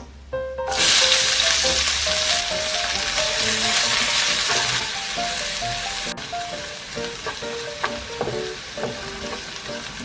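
Food added to hot oil in a pan, starting a loud sizzle all at once about a second in, which settles to a steadier, quieter sizzle with a few stirring clicks near the end.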